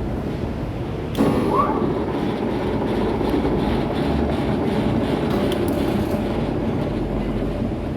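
C6232A1 metal lathe running on test, a steady mechanical whir from its headstock drive. About a second in the sound steps up suddenly, with a brief rising whine.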